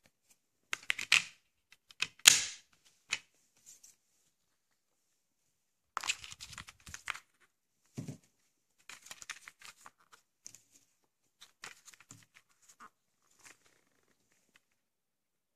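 A plastic DVD case being handled: sharp clicks and snaps of the case, the loudest about two seconds in, then lighter clicks and rustling as the disc and paper insert are handled.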